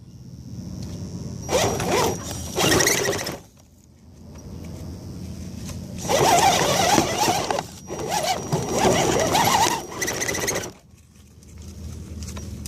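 Axial SCX10 RC crawler's electric motor and geared drivetrain whining in throttle bursts: two short bursts, then a longer run of several seconds with a wavering whine, dropping back between bursts.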